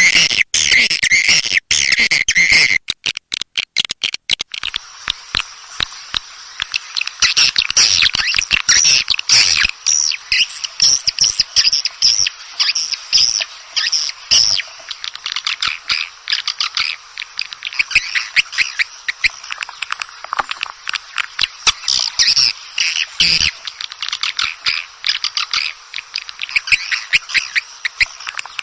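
Swiftlet calls: a dense run of fast twittering chirps and clicks, the kind of swiftlet sound track played in a swiftlet house to lure birds to nest.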